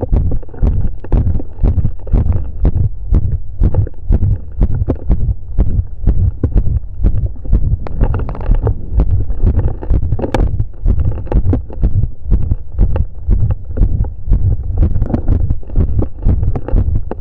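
Heartbeat heard through a chest piece pressed over the apex of the heart after exercise: a steady, regular run of loud, deep thumps.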